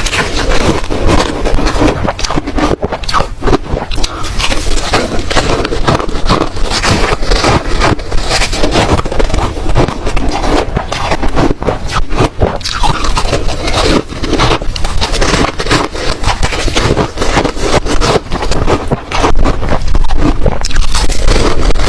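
Ice being bitten and chewed, a dense, unbroken run of crunching and cracking.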